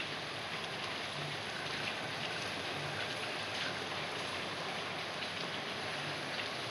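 Steady rain falling, an even hiss with scattered sharper drips hitting nearby surfaces.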